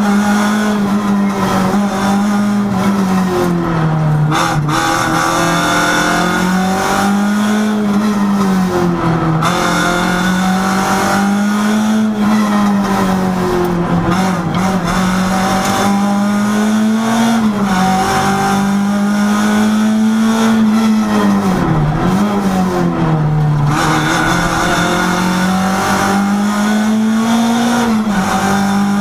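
Renault rally car's engine heard from inside the cabin, running hard with a fairly steady note that dips briefly in pitch several times (around 4, 9, 22 and 23 seconds in) and climbs back as the driver lifts and shifts.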